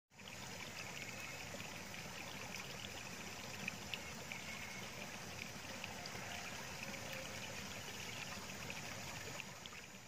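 Water babbling and trickling steadily along a concrete irrigation channel, with many small splashes, easing slightly near the end.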